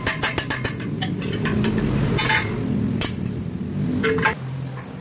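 Square steel tubes knocking and scraping against each other and a tile floor as they are handled and set in place: a rapid run of knocks at the start, then a few single knocks and short scrapes. A low droning hum runs underneath.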